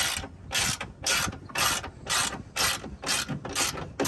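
Hand ratchet wrench clicking in short back-and-forth strokes, about two a second, as it runs the mirror's mounting nuts down to snug.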